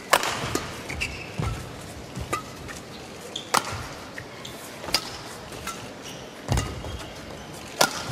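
Badminton rally: rackets striking the shuttlecock back and forth, about seven sharp hits spaced a second or so apart. Between the hits there are short squeaks of players' shoes on the court.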